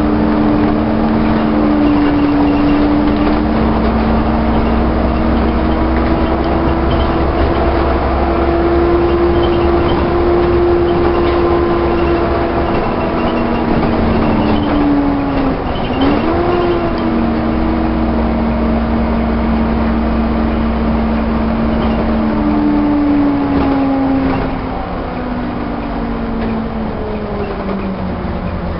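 Alexander-bodied Volvo bus running under way: steady engine and driveline drone. About halfway through the pitch dips sharply and recovers, as at a gear change. Near the end the pitch falls and the sound gets quieter as the bus slows.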